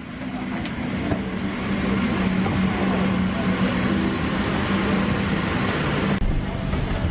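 Steady hum of a Boeing 777-300ER's cabin air conditioning on the ground during boarding: an even rush of air over a constant low drone. The rush eases slightly about six seconds in.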